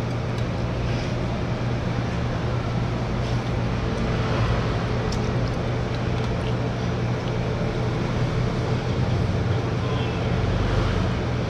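Steady restaurant background: a low hum under a rushing noise, with a few faint light clicks.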